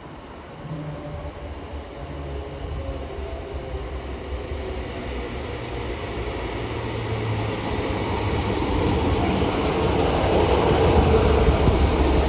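Class 150 Sprinter diesel multiple unit arriving at a station platform, the hum of its underfloor diesel engines and the rumble of its wheels growing steadily louder as it approaches and draws alongside.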